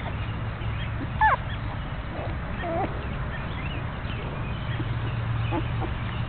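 Young puppies squeaking and whimpering as they squirm in a pile: a sharp falling squeal about a second in is the loudest, followed by a shorter whine near the middle and a few faint squeaks near the end.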